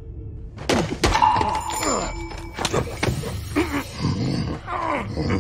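A close-quarters fight in a film sound mix: a rapid string of sharp hits, thuds and scuffles starting about a second in, over the score music.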